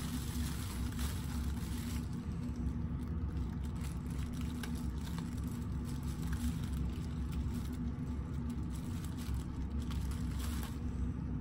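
Clear plastic wrap crinkling faintly as it is stretched over a steel bowl and twisted closed by hand, over a steady low hum.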